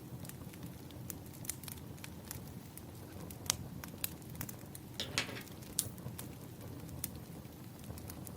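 Wood fire crackling: irregular sharp pops and snaps over a low steady rumble, with a longer hissing burst about five seconds in.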